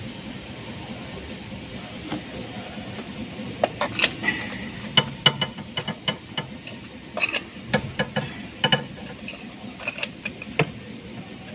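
Steady hiss, then from about three and a half seconds in, a run of irregular sharp metallic clicks and clinks: hand tools and spark plugs being handled while new spark plugs are fitted to the engine.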